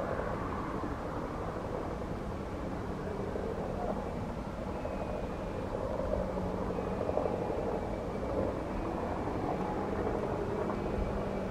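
Mil Mi-2 helicopter hovering low, its twin turboshaft engines and rotor running steadily, with a low hum and a faint high turbine whine.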